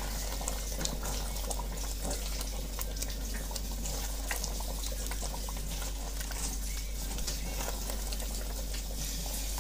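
Chicken karahi gravy bubbling and sizzling in a steel pot as it is stirred with a spatula, a steady wet hiss with scattered small pops and clicks. The curry is being fried down after the yogurt went in, cooking until the oil separates.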